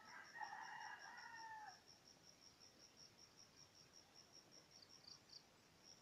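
A rooster crowing, the held call ending with a slight drop about two seconds in, over an insect's steady high chirping pulses, about four a second.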